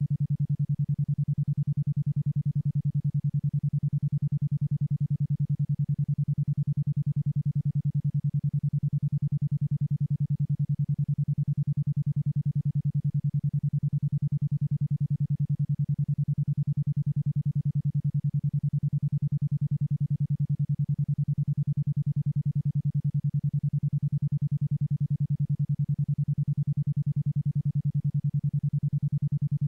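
Isochronic tone of 10.2 Hz: a single low steady pitch switched on and off about ten times a second, made as an alpha-wave brainwave-entrainment signal.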